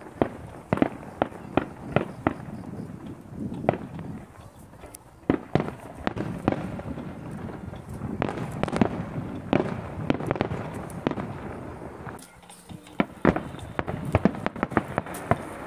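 Aerial firework shells bursting in quick succession, a string of sharp booms and crackles. There is a short lull about twelve seconds in, then a dense flurry of bursts near the end.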